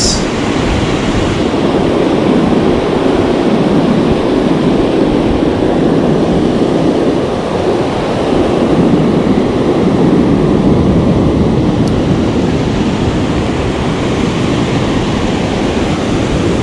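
Ocean surf breaking and washing up the beach in a steady, loud rush, with wind rumbling on the microphone.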